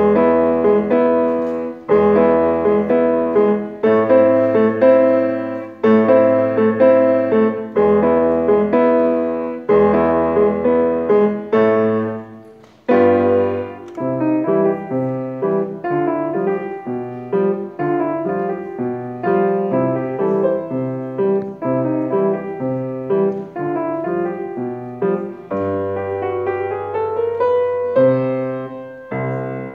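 Grand piano playing a ragtime piece, with heavy bass notes about every two seconds in the first half. About twelve seconds in, the playing breaks off briefly and then moves into a quicker passage, with a rising run of notes near the end.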